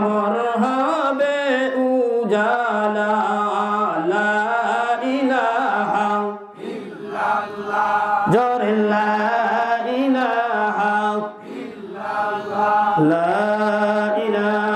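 A man chanting in a melodic, sung style into a microphone, Islamic zikr-style recitation in long held phrases with a few short breaks for breath.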